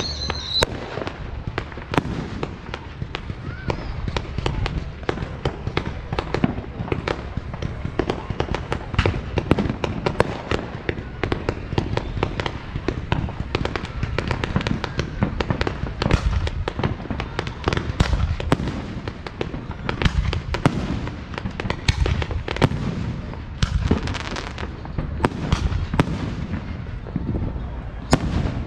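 Fireworks display: aerial shells bursting in a continual, irregular run of sharp bangs, several a second.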